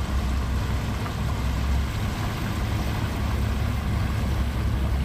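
A 48-foot motor yacht's engines running at idle as it moves slowly in toward the dock: a steady low rumble with a hiss over it.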